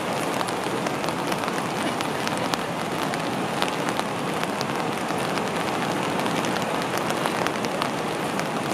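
Steady rush of whitewater rapids and waterfalls on the Great Falls of the Potomac River.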